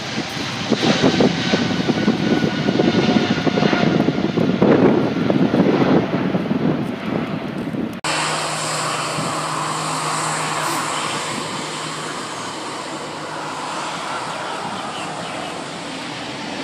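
Jet airliner engines: a rough rumble that rises and falls for about eight seconds, then after a sudden cut a steadier engine noise with a low hum from a Virgin Australia Boeing 737 on the runway.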